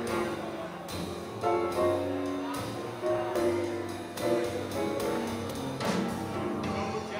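Live swing jazz band playing, with held chords changing every second or so.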